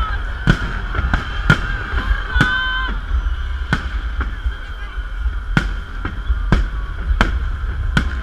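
Fireworks salute: about a dozen sharp bangs at irregular intervals, one or two a second, over a steady low rumble.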